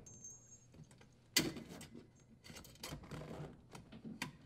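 Strain relief and power wires being worked out of the dishwasher's sheet-metal junction-box bracket: a sharp click about a second and a half in, then rattling and scraping of the wires, and another click near the end.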